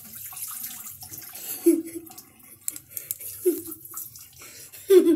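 Water gushing and splashing out of a punctured water balloon. The tape trick has failed and the water spills messily. A boy's voice makes three short sounds over it.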